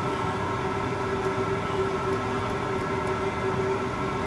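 Steady machine hum of a running convection oven, its fan going, holding two constant pitched tones over an even rush of air. A few faint high ticks come through in the middle.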